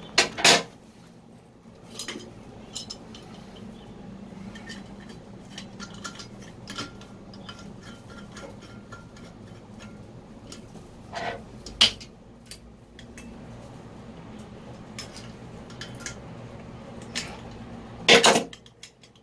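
Chrome and brass plumbing fittings clinking and knocking as a wall-mounted bath mixer tap is handled and its coupling nuts are offered up and turned onto brass connectors. A few sharp metallic knocks stand out: the loudest just after the start, two more a little past halfway, and another near the end, with lighter ticks between.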